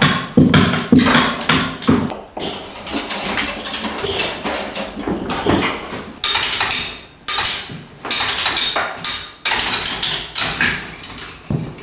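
Handmade sculpture instruments struck and scraped close to a microphone: a string of knocks and taps, loudest in the first couple of seconds, then several harsher scraping strokes from about four seconds in.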